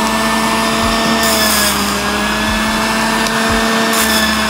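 Electric juicer's motor running steadily with a whine as it presses coconut pieces with a little water.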